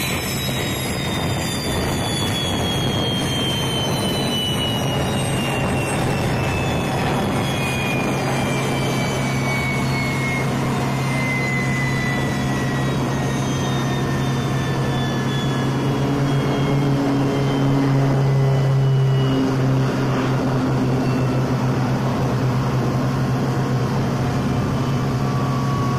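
A parked C-130H Hercules's turbine noise: a steady low drone with a high whine falling slowly in pitch over some fifteen seconds as a turbine winds down. A cargo loader truck's engine adds a second note that swells past the middle, the loudest part.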